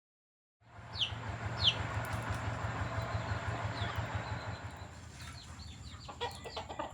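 Chickens clucking, with a few short falling chirps early on and a burst of quick clucks near the end, over a steady low hum.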